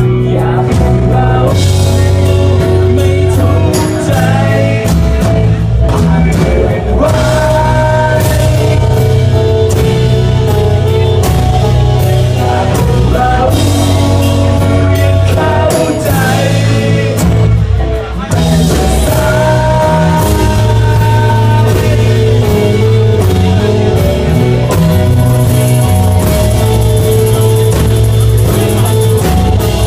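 Rock band playing live: electric guitar and bass with a drum kit, loud and steady, with no clear lead vocal.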